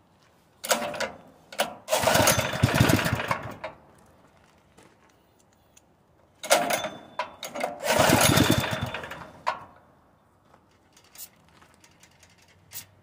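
Propane-fed Honda GX160 single-cylinder engine pull-started twice: each time it fires, runs for a couple of seconds, then dies. This easy stalling is a fault the owner suspects lies in the cam's compression release or in weak valve springs.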